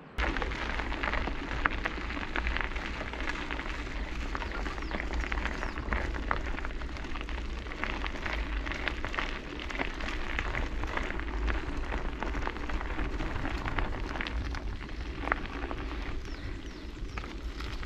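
Mountain bike tyres rolling and crackling over a gravel road, with a dense run of small ticks and clicks over a steady low wind rumble on the microphone.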